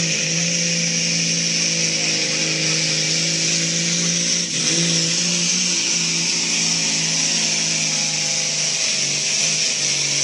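Semi truck's diesel engine running flat out under full load as it drags a pulling sled, with a loud steady hiss above the engine note. Its pitch drops a little at the start, then holds steady.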